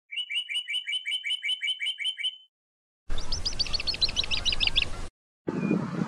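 Bird chirping in two quick runs. First comes a clean, even series of about a dozen chirps in roughly two seconds. After a short pause, a second rapid trill of about a dozen higher chirps plays over background hiss. A steady background rush starts near the end.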